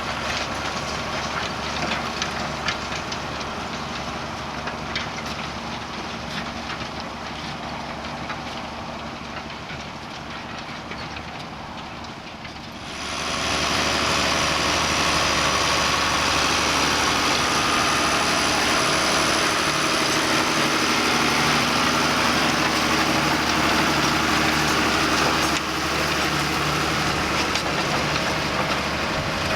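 John Deere 6930 tractor's six-cylinder diesel engine working under load pulling a four-furrow plough through grassland. For the first part it slowly fades, with light clicks and rattles. About halfway in it jumps suddenly to a louder, steady engine sound with a high whine.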